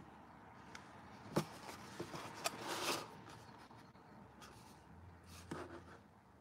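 Light handling noises from a small stretched canvas being moved and held on a tabletop while painting: a few light knocks, the sharpest about a second and a half in, and a brief scraping rustle about three seconds in.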